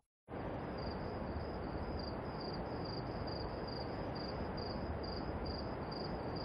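Insects chirping in a regular pulse, about two high chirps a second, over a steady low background hiss.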